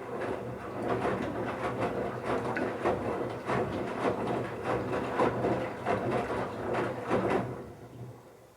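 Bauknecht Super Eco 7615 front-loading washing machine turning its drum in the wash phase: a steady motor hum under irregular knocks and swishes of the wet towels tumbling. It runs for about seven seconds and then winds down as the drum stops.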